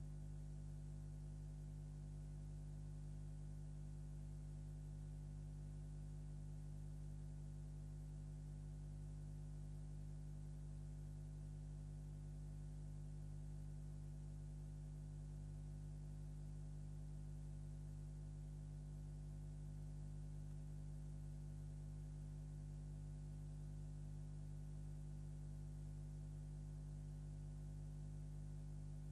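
Steady low electrical mains hum with a stack of overtones over a faint hiss, unchanging throughout.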